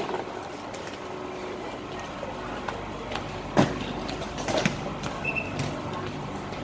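Passengers getting off a train onto an Airport Rail Link platform: footsteps and shuffling over a steady station hum, with two sharp knocks about three and a half and four and a half seconds in and a short high beep just after five seconds.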